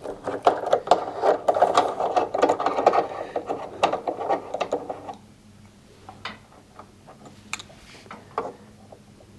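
Box driver unscrewing the nut on the Samsung washing machine heater's clamp shaft: a fast, rattling run of small metal clicks for about five seconds, then a few light clicks as the nut reaches the end of the shaft.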